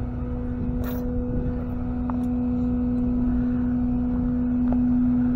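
A vehicle engine running steadily, with a constant low humming tone over a rumble and a few faint clicks.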